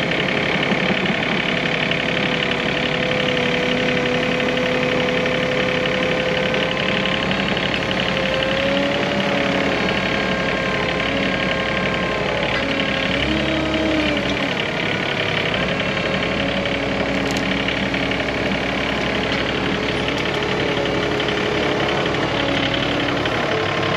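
Skid steer engine running steadily under load while pulling a stuck Toro Dingo mini skid steer out with a chain, its engine speed shifting a little now and then.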